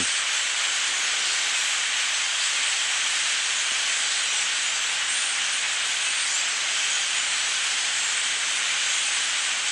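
A massive flock of blackbirds calling all at once, blending into a dense, steady, hiss-like din with faint individual calls on top.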